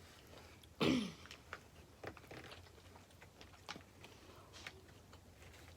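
People eating a seafood boil: faint chewing and small clicks, with a short voiced 'mm'-like sound falling in pitch about a second in.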